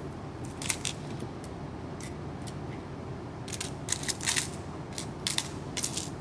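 Tiny plastic building bricks clicking and rattling as they are picked from a tray and pressed onto a small model: scattered light clicks, more frequent in the second half, over a low steady hum.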